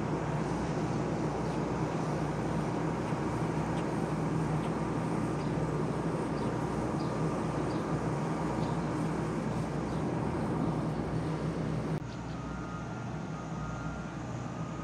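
A large engine running steadily with a deep hum and a constant rushing noise. About twelve seconds in it cuts abruptly to a quieter engine sound with a faint high whine.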